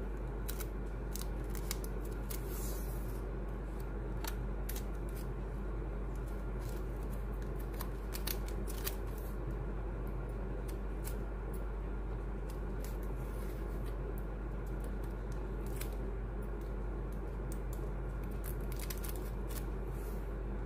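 Scattered sharp clicks and snips of scissors and sticky tape being handled during crafting, over a steady low hum.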